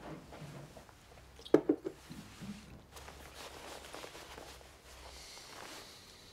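Three quick knocks about a second and a half in, then soft rustling of a padded jacket as it is handled.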